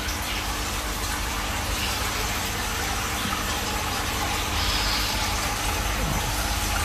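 Aquarium filter running: a steady low hum with a constant rush of moving water.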